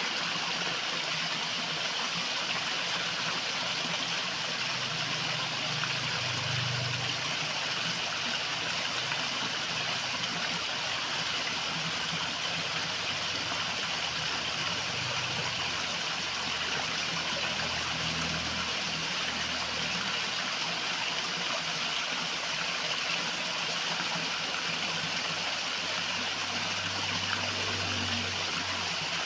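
River water flowing steadily: an even rushing hiss with no breaks, and faint low rumbles that come and go.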